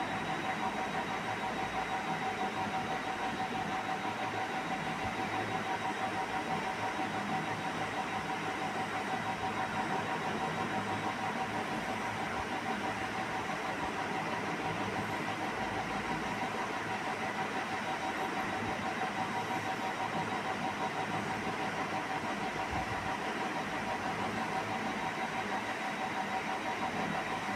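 A steady machine hum and whir with a constant high-pitched tone running through it, unchanging throughout.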